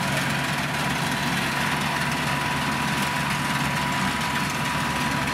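Old self-propelled combine harvester running steadily, its engine and machinery giving an even drone with a thin steady whine over it.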